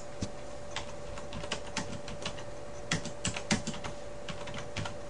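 Typing on a computer keyboard: irregular keystroke clicks, some in quick runs.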